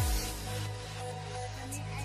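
Electronic background music: a held deep bass note under a sustained synth chord.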